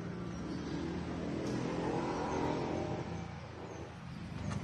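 A motor vehicle's engine that grows louder to a peak about two seconds in, then fades.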